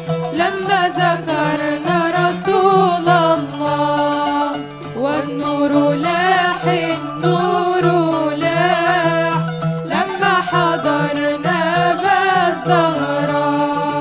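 A young women's vocal group singing an Islamic nasheed into microphones, the melody wavering with ornamented vibrato, over oud accompaniment and a steady low sustained backing.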